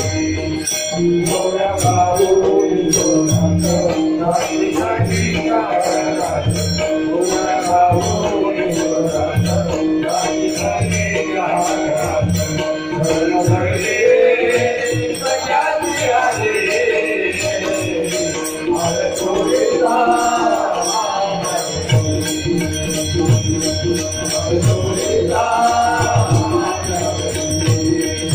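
Devotional group singing of a Marathi abhang, with metallic jingling percussion and steady drum strokes keeping the beat.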